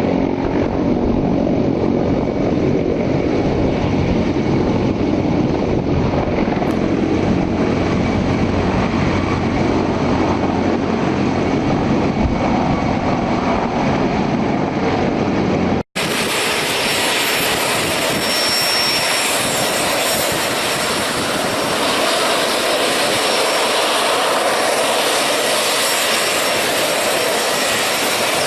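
A CH-53E Super Stallion helicopter's turbine engines and rotor running steadily, with a dense low rumble and steady low tones. About 16 s in, an abrupt cut switches to a different recording of turbine noise that is hissier and higher-pitched, with little low rumble.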